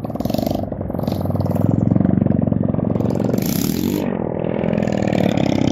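Small engine of a homemade motorized bike running under load, its pitch rising and falling as it revs, with three short bursts of high hiss.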